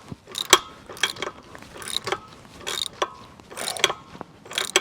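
Ratchet wrench clicking in short back-and-forth strokes, about one burst of clicks every half second to second, as it tightens a tongue jack mounting bolt that is getting tight but not yet fully seated.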